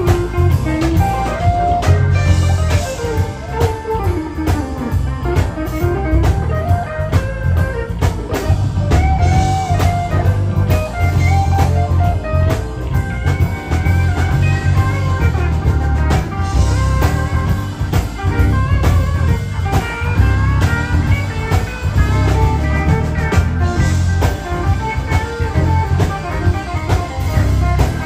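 Live electric blues band: an electric guitar plays bending lead lines over bass guitar and drum kit.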